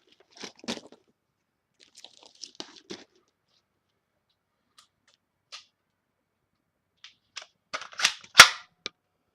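Spring-powered Boomco toy dart blaster being handled: a few light plastic clicks, then near the end a quick run of clicks and one loud sharp snap of its strong spring.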